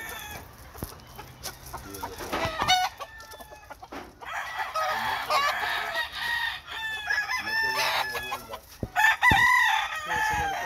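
Several gamecock roosters crowing one after another from their pens, with clucking in between.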